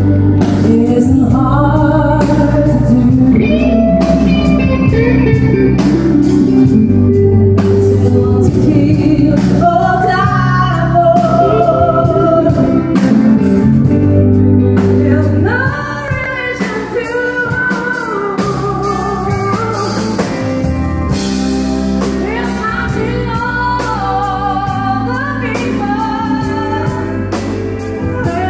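Live band music: a woman singing a country-style song into a handheld microphone, backed by an electric keyboard and drums with a steady beat. The music gets somewhat quieter about halfway through.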